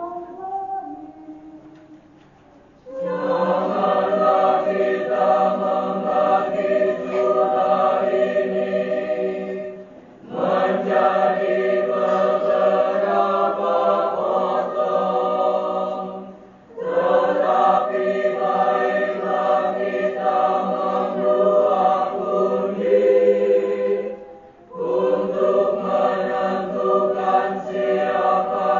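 A solo voice finishes a sung line at the start. A church choir then sings in four long phrases, each broken off by a short pause for breath.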